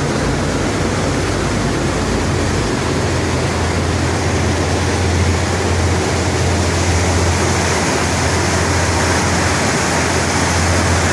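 Steady rushing of churned water in a river cruise ship's wake behind the stern, with a low, steady drone from the ship's engines and propellers beneath it; the drone grows stronger a few seconds in.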